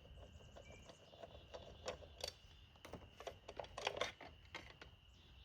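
Faint, irregular clicks and taps of hands and small parts being handled on a chainsaw with its top cover off, while no engine is running.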